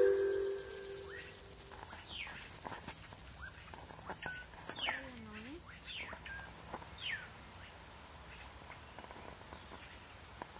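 Insects trilling in a steady, high-pitched chorus, dropping to a quieter level about six seconds in. A marimba tune dies away in the first two seconds.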